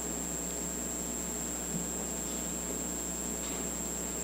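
Steady electrical hum, low and even, with a thin, constant high-pitched whine above it and no speech.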